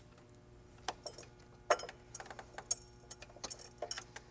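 Irregular light metallic clicks and taps of bolts and washers being handled and set by hand on a throttle valve adapter, starting about a second in.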